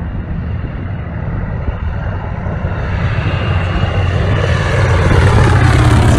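Small single-engine propeller plane flying low past, its engine growing louder as it closes in and loudest near the end as it goes by.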